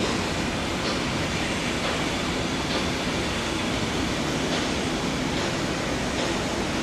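EF65 electric locomotive moving at a crawl, a steady noise with a faint click about every two seconds.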